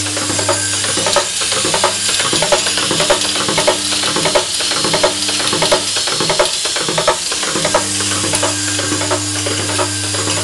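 Vibratory bowl feeders running: a steady electromagnetic hum with dense, irregular rattling and clicking of small parts shaking along the bowl's spiral track. The hum fades from about a second in and comes back strongly near the end, while the rattling goes on throughout.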